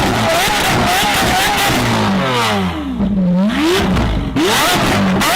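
Supercar engine revving: its pitch falls steeply about two seconds in and climbs again near the end.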